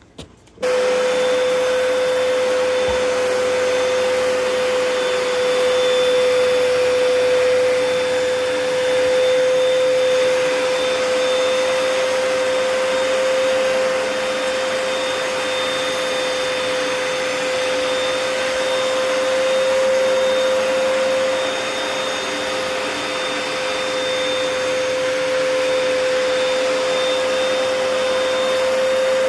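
Hoover upright carpet cleaner switched on about half a second in and running steadily: a motor hum with one strong steady tone over a loud rush of air.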